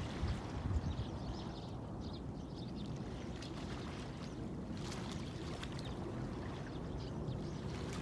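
Steady sound of moving water, with a few faint, short high chirps over it.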